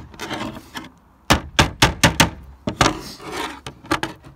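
Irregular sharp knocks and taps, about eight of them, with patches of rubbing close to the microphone: hands and a sleeve working right by the phone as lead flashing is pressed back down onto fibre-cement roof slates.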